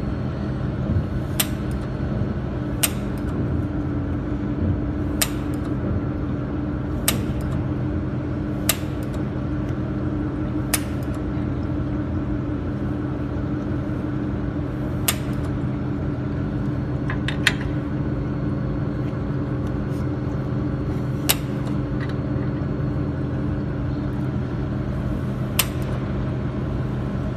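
Jewelry laser welding machine firing single pulses, each a sharp snap, about ten at irregular intervals, over the machine's steady cooling hum. The test shots show the weld effect while the focus is being adjusted.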